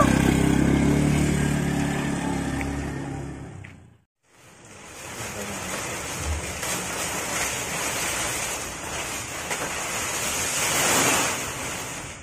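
Motor scooter engine pulling away and fading out over the first few seconds. Then, after a brief silence, steady rustling of dry banana leaves (klaras) being handled, loudest near the end.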